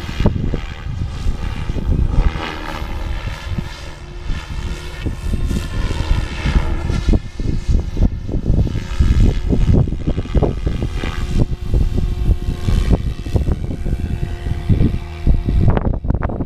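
SAB Goblin 570 electric RC helicopter flying: a whining rotor and motor tone that rises and falls in pitch as it manoeuvres, with wind buffeting the microphone.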